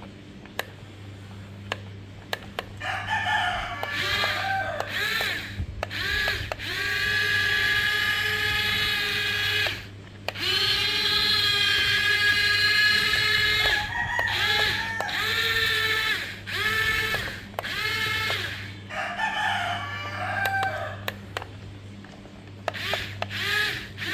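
Roosters crowing again and again, several long drawn-out crows about six and ten seconds in, over a steady low hum and faint clicks.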